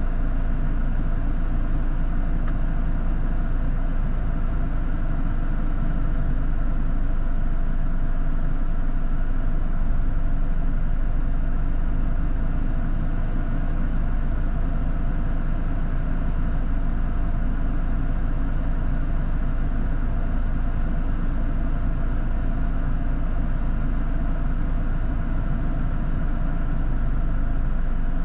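A 4x4 off-road vehicle's engine running steadily, a continuous even hum with no change in pace.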